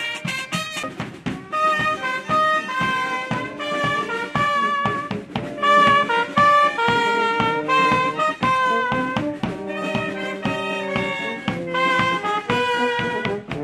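Brass marching band playing a tune: trumpets carry the melody over a steady drum beat.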